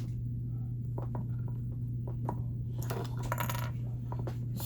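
Small metal parts clinking and tapping as they are handled: a few scattered clicks, then a brief metallic jingle about three seconds in, over a steady low hum.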